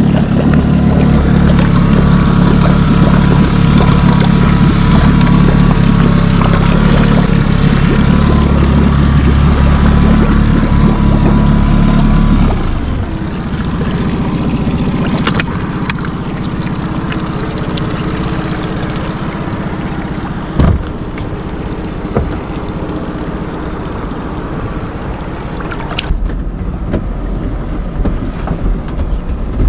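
Motorboat engine running steadily, with a loud low hum. It gets noticeably quieter about twelve seconds in and stays at that lower level, with a few short knocks later on.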